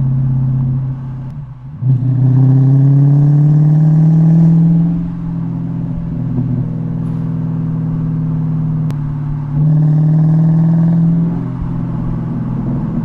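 Dodge Challenger R/T's 5.7-litre Hemi V8 through an H-pipe, mid mufflers and Dynomax Race Bullet rear mufflers with the active valves deleted. It pulls twice with the pitch rising, the first pull starting about two seconds in and the second near the ten-second mark. After each pull it lifts off into a quieter, steady deceleration burble.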